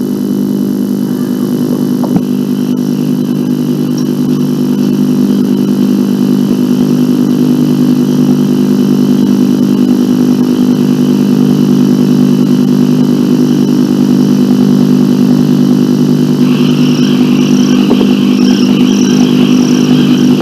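Dramatic background score: a sustained, steady low droning chord, with a higher line of short repeated notes joining it about three-quarters of the way through.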